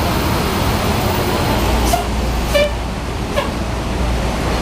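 Bus engine rumbling low amid steady traffic noise, with a few brief sharp sounds over it.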